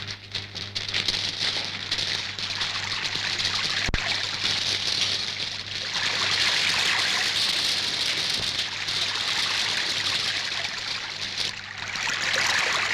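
Sound effect of rushing, splashing water, a dense steady hiss, over a low steady hum, with one sharp click about four seconds in.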